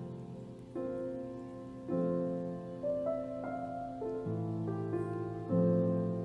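Slow, gentle background piano music, a new chord struck about every second and left to fade.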